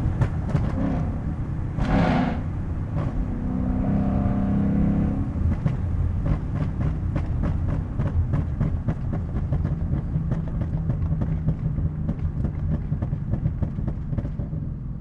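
Ford Mustang exhaust with a custom H-pipe and resonator delete, on a ghost-cam tune: the engine drones for a few seconds, its pitch shifting, then breaks into a long run of rapid crackles and pops, several a second, that go on for most of the remaining time.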